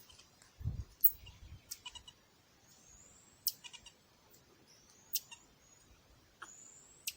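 Common marmosets calling: three thin, high whistles that rise in pitch, with short sharp ticks in between. There is a low thump about a second in.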